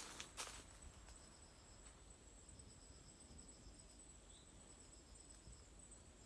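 Faint insects chirping in the forest: a thin steady high whine with short trains of rapid pulses that come and go. A footstep on the forest floor sounds just after the start.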